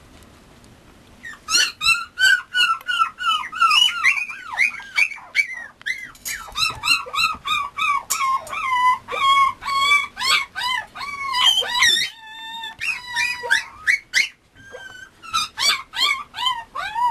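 Mame Shiba puppy whimpering in a rapid run of short, high-pitched whines, several a second, starting about a second in, with a brief lull about twelve seconds in.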